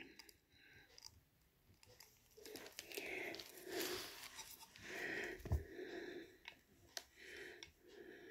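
Faint, heavy breathing, in soft swells under a second apart, with a few light clicks from a self-adhesive rhinestone strip being handled and pressed on.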